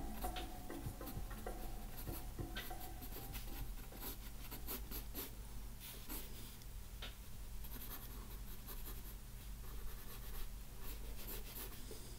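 Graphite pencil scratching on paper in short, irregular sketching strokes, over a low steady hum.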